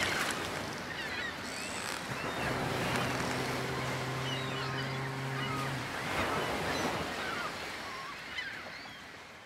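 Steady rushing ambience like wind and surf, with faint short chirping calls scattered through it. A low steady hum sounds from about two and a half to six seconds in, and the rushing fades away near the end.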